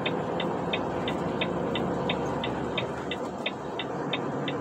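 A vehicle's turn-signal indicator ticking steadily, about three ticks a second, signalling to overtake. The steady hum of the engine and road is heard under it inside the cab.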